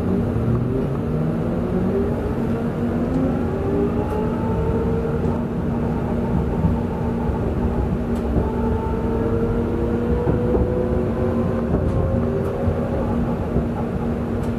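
Duewag B80D light-rail car under way: its traction motors whine and climb steadily in pitch as the car gathers speed, over a steady hum and the deep rumble of the running gear.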